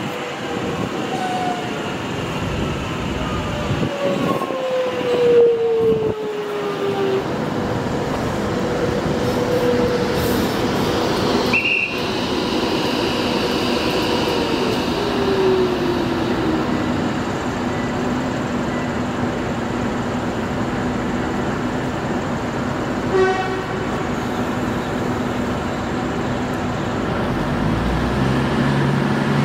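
X'Trapolis 100 electric train pulling into a station platform, its traction motors whining in falling tones as it brakes, over a steady rumble of wheels on rails. There is a short high beep near the middle and a brief toot about three-quarters of the way through.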